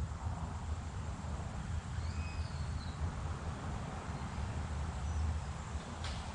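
Outdoor park ambience: a steady low rumble with one short, high bird chirp about two seconds in and a single sharp click near the end.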